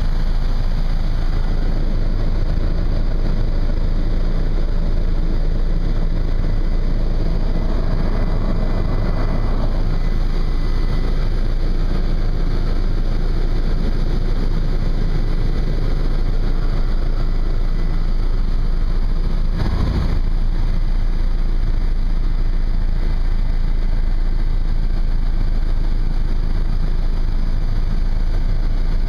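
Helicopter engine and rotor noise heard from inside the cabin in flight: a steady, loud drone. A faint high whine runs over it in the first half.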